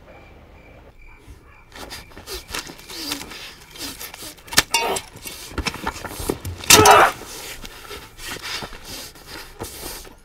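A man's grunts and hard breaths amid irregular thuds and scrapes of earth and debris on a grave mound, with one loud strained cry about seven seconds in.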